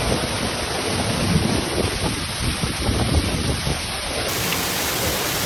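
Heavy thunderstorm rain pouring down, with strong wind gusts buffeting the microphone.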